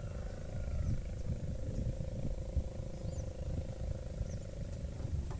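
Wind buffeting the microphone as an irregular low rumble, with a steady faint hum underneath.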